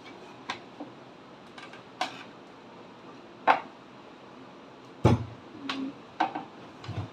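Irregular knocks and clinks from hard parts or tools being handled and set down, about seven in all. The loudest comes about halfway through, and a cluster of clunks follows near the end.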